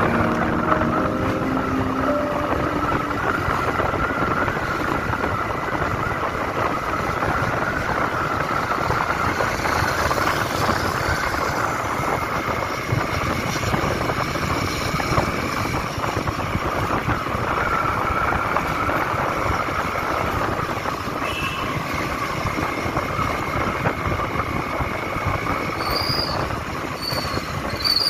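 Steady rush of wind and road noise with a two-wheeler's engine running, heard from the moving bike, with a few short high chirps near the end.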